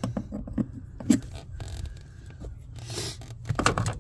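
Handling noises of parts being worked by hand into a tight fit: scattered knocks, clicks and scrapes, with a sharp click about a second in, a short rustling swish near three seconds and a cluster of scraping clicks near the end.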